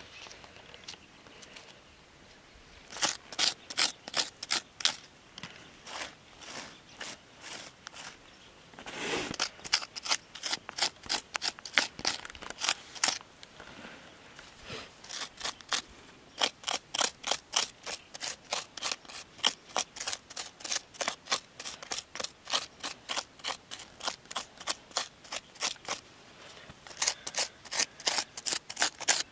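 Quick repeated scraping strokes, about four a second, in runs with short pauses between them. They become nearly continuous over the second half.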